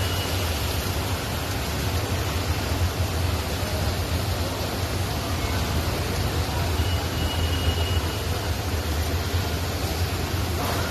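Steady road traffic noise: a continuous low rumble under an even hiss, with no single event standing out.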